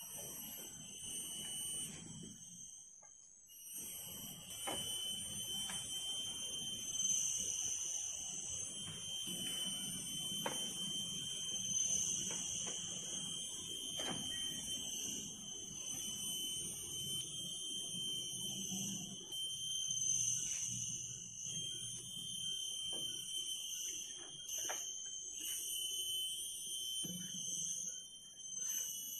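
Steady high-pitched shrill of forest insects, several tones held together and wavering in strength, with a few sharp knocks scattered through it.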